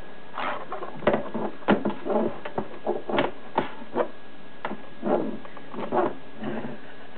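A stick poking and scraping at a cardboard box while a cat scuffles and paws at it inside, making a string of irregular knocks, scrapes and rustles on the cardboard that stop near the end.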